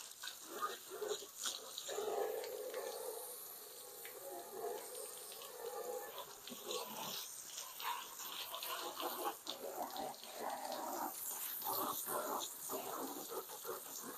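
Water from a garden hose spraying and splashing on a car's bodywork, spattering unevenly.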